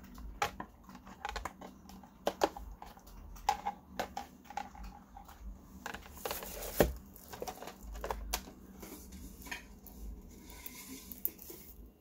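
Hard plastic housing of a drip coffee maker being handled and fitted back together: scattered clicks and knocks, with a rustling stretch a little past the middle and the loudest knock just before seven seconds in.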